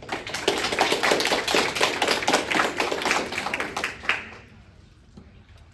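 Audience applauding, a dense run of hand claps that dies away about four seconds in.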